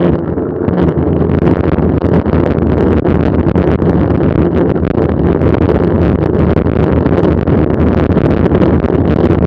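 Steady wind buffeting the microphone of a camera riding along on a mountain bike, a loud low rumble with faint rattles on top.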